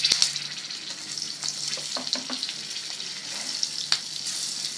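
Stuffed green chillies sizzling in hot oil in a wok while a spatula stirs and turns them: a steady frying hiss with scattered crackles and a few sharper clicks, loudest just at the start.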